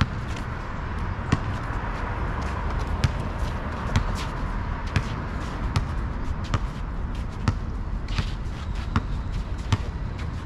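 Basketball being dribbled on an outdoor asphalt court: repeated sharp bounces, roughly one a second, over steady background noise.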